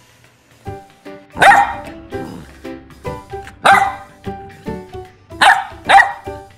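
Golden retriever puppy barking four times, the last two close together near the end, over light background music.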